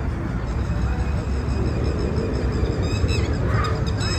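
Outdoor ambience: a steady low rumble with faint voices gliding in about three seconds in.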